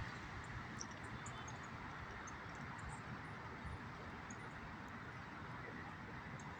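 Faint, steady outdoor background noise, an even hiss, with a few faint, brief high chirps scattered through it.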